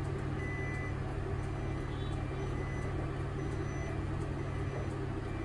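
Route bus reversing slowly, its engine running with a steady low hum while the reversing warning beeps about once a second, heard from the driver's seat.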